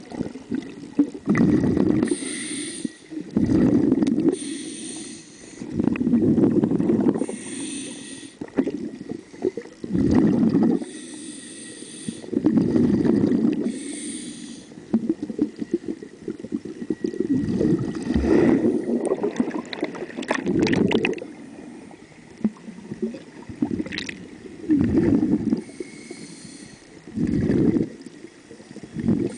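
A diver's breathing heard underwater: rhythmic breaths with hissing and bubbling, one about every two to three seconds, less regular in the second half.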